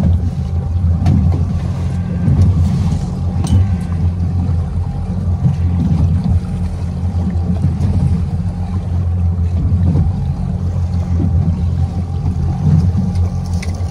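Motorboat engine running steadily as the boat moves along under way.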